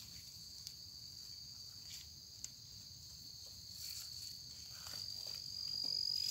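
Insects calling with a steady, high-pitched trill that swells louder over the last two seconds, with a few faint clicks.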